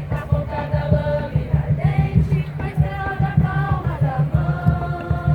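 A group of people singing a slow song together in unison, holding each note, over a loud, choppy low rumble.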